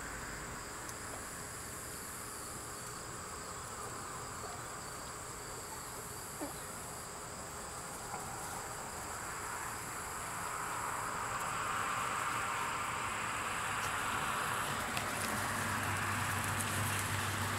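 Crickets and other insects chirping steadily in a high, continuous trill. A lower hiss grows louder in the second half.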